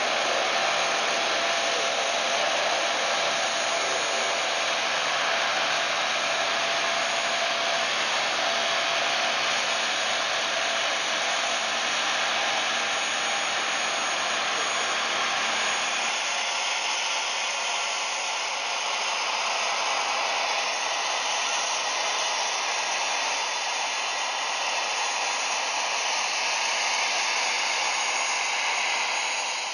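Steady jet-turbine rush and whine around a parked C-5B Galaxy, with a lower engine hum underneath that drops away about halfway through.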